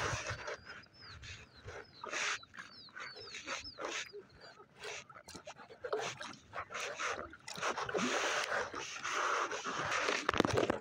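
Irregular bursts of water splashing and rustling around an inflatable kayak. In the first few seconds a string of about ten short, high chirps sounds over them.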